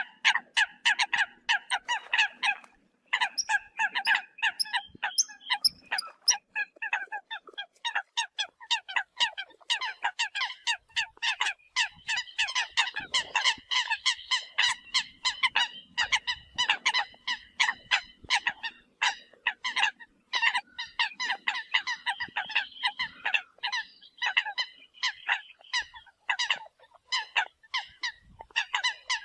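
Eurasian coots calling: a dense, continuous run of short, sharp honking notes, several a second, with a brief break about three seconds in.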